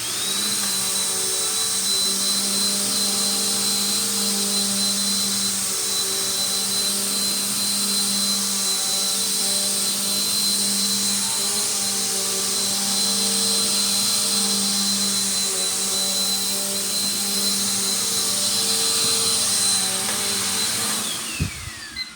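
Bissell Powerforce bagged vacuum cleaner running steadily with a high motor whine, then switched off about a second before the end, its whine falling away as the motor spins down.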